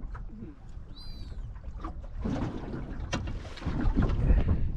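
Wind rumbling and gusting on the microphone aboard a small fishing boat, with scattered knocks. A brief high chirp comes about a second in, and the wind grows louder near the end.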